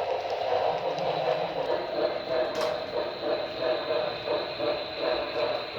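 Model steam locomotive, a Santa Fe 4-8-4 Northern, running with a long freight train on a model railroad. It makes a steady running rumble that pulses about three times a second, over a thin steady high whine.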